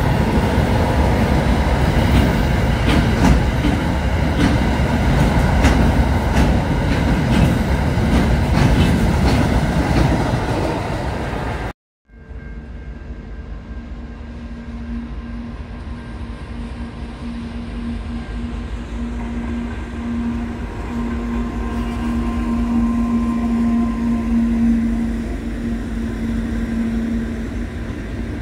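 A freight train rolls past close by, its wheels clicking over the rail joints. It cuts off suddenly about 12 seconds in. Then a second diesel freight train approaches, a steady low hum rising in level as it nears.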